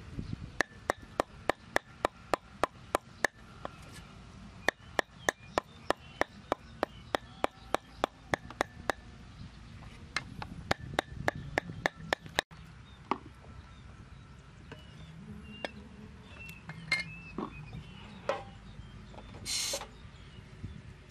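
Meat cleaver chopping raw pork on a round wooden chopping board, mincing it with rapid even strikes about three a second. The chopping stops about halfway through, followed by a few light knocks and a short scraping noise near the end.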